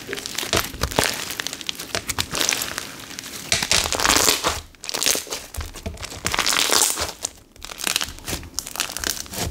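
Clear slime with foam flower charms being stretched, folded and squeezed by hand, giving a dense run of crackling and popping from trapped air. It swells loudest twice, about four and about seven seconds in.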